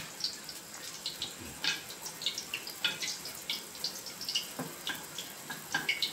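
A pot of yellow sour broth with sour eggplant (terong asam) boiling on a stove burner: irregular bubbling and small pops over a faint steady hiss.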